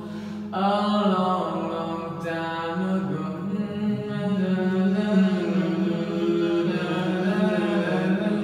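Wordless singing: a voice gliding through a slow melody over a steady, held low note, with no instruments, in a concrete stairwell.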